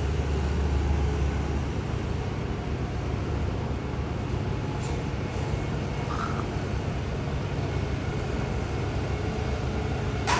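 Steady low outdoor rumble of distant engines and machinery. A deeper hum drops away about two seconds in, with a short faint chirp near the middle and a sharp click near the end.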